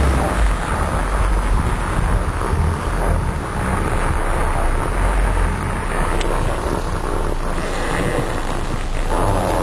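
A car's engine running, heard from inside the car as a steady low rumble.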